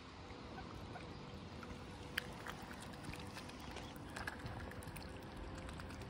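Soft water sounds on a lake, small splashes and drips with scattered light ticks, as young swans and mallards preen and dabble at the surface.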